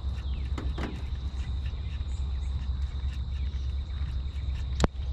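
Outdoor pond background: a steady low rumble and a steady thin high-pitched tone like an insect drone, with faint short falling chirps. Light clicks come as the baitcasting rod and reel are worked, and one sharp click near the end is the loudest sound.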